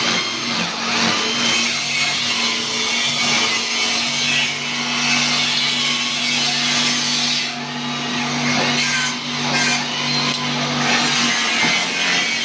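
Motor-driven chopping machine (mesin cacah) running: a steady hum under a loud, continuous rasping noise of cutting. The hum fades out near the end.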